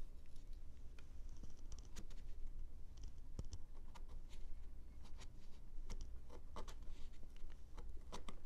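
Small flat carving chisel paring the end grain of a wooden block: an irregular run of short scratchy clicks as the edge scrapes and bites across the fibres, the end grain tough to get through.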